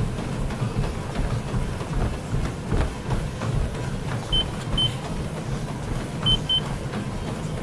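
Steady low rumble with faint thumps, and two pairs of short high electronic beeps, one pair a little past halfway and another near the end.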